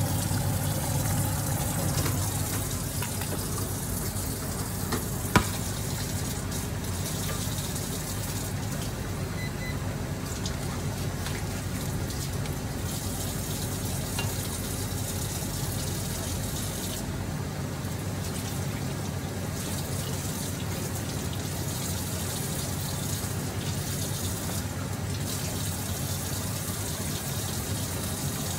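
Pork and chicken adobo cooking in a pan, a steady sizzle and bubble, with one sharp click about five seconds in.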